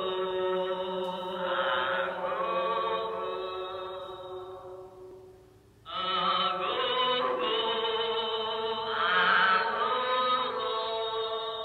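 Music of sustained, chant-like voices holding long notes, fading away about five seconds in and starting again abruptly about a second later.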